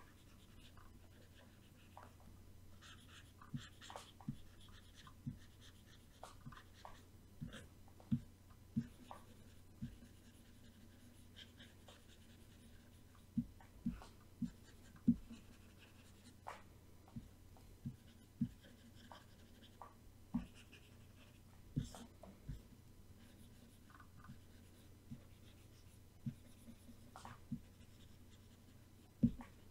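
Faint, irregular clicks and taps from a computer input device while a mask is painted by hand, with light scratching between them over a low steady hum.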